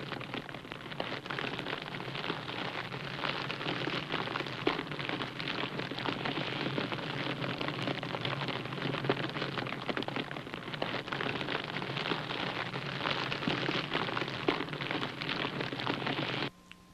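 TIG welding arc on stainless steel, a steady crackling hiss with a low hum underneath, as the coupons are tack-welded. It cuts off suddenly near the end.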